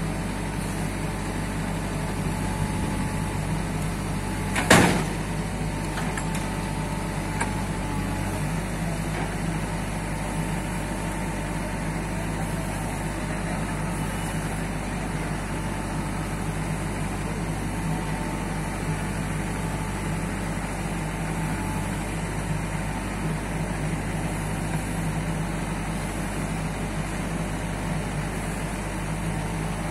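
JCB 3DX backhoe loader's diesel engine running steadily while its wood-loading grab lifts a log onto a truck. A single loud knock comes about five seconds in.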